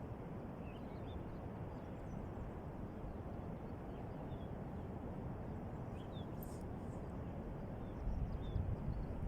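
Steady low outdoor background rumble with faint, scattered high chirps; a few louder low bumps come in near the end.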